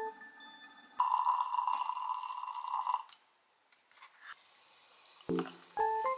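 Red wine pouring from a bag-in-box tap into a wine glass of strawberries, a steady stream of liquid for about two seconds before stopping. Piano music fades out at the start and comes back near the end.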